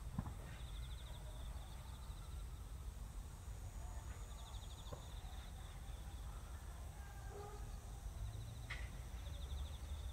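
Rural ambience: insects trilling in short, finely pulsed bursts that repeat every few seconds, over a low steady rumble, with a few faint knocks.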